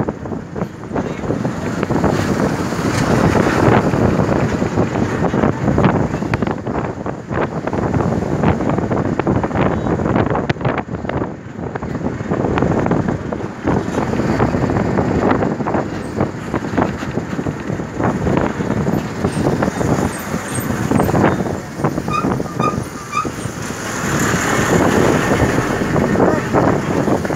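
Wind buffeting a phone microphone in gusts, with people's voices underneath. Near the end, three short high beeps in quick succession.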